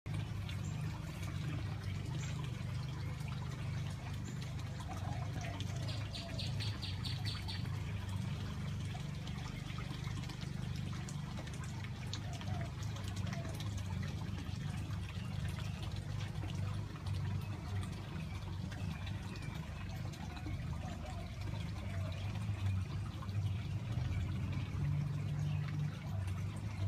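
Backyard garden ambience: a steady low rumble, with a short, rapid high-pitched trill about six seconds in and a few faint chirps.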